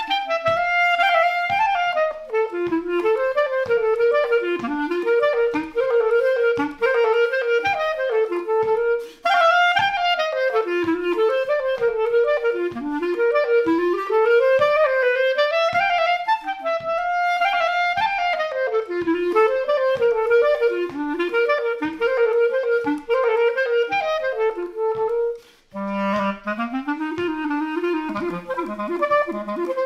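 Solo clarinet playing a waltz melody, with short pauses for breath about nine and twenty-six seconds in; after the second pause the tune moves down into the instrument's low register.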